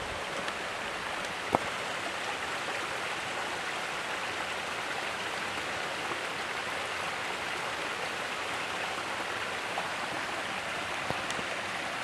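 Small mountain stream and waterfall running over rocks, a steady rush of water. A single sharp click about a second and a half in, and a fainter one near the end.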